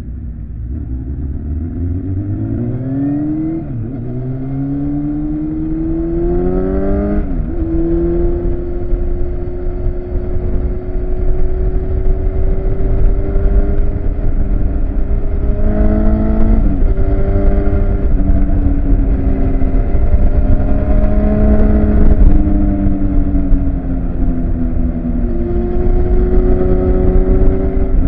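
Honda CBR1000's inline-four engine heard from on board, pulling up through the gears: the pitch rises and drops sharply at shifts about 4 and 7 seconds in, dips again at about 16 seconds, then holds a steady cruise with small rises and falls. Heavy wind rumble on the microphone runs underneath.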